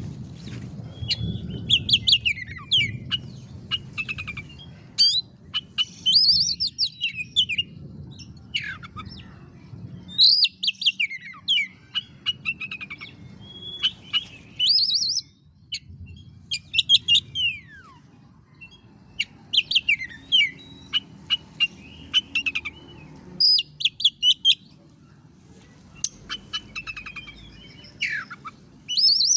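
Oriental magpie-robin singing in full voice: loud whistled phrases with sharp rising and falling notes, broken up by quick rattling runs of ticks, coming in bursts every second or two.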